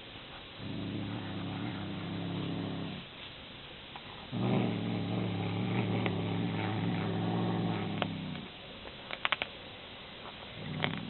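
A cat growling: two long, low, steady growls, the second longer and louder. A few sharp clicks follow, then the start of another growl near the end.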